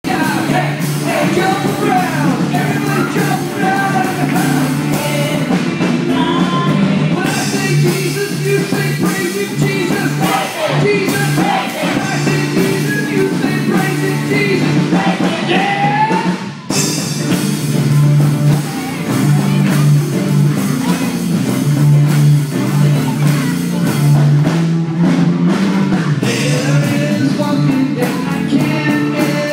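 Live worship band playing a song with a lead singer over a full band, briefly dropping out for a moment just past halfway.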